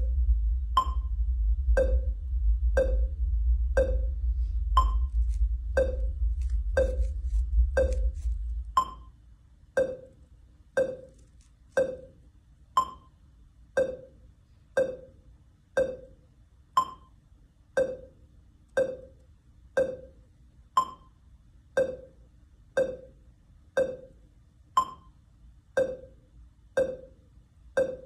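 IMAX cinema sound-system channel-verification and sync test: a short pitched pip or click through the theatre speakers about once a second. For the first nine seconds or so a loud, deep, steady rumble runs under the pips, then stops.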